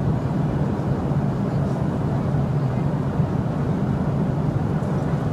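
Airliner cabin noise: a steady low drone from the plane's engines and air system.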